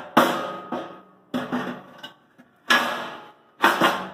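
Heavy steel heat management plate clanking into place in the steel cook chamber of a Yoder Cheyenne offset smoker: about five ringing metal clangs, roughly a second apart.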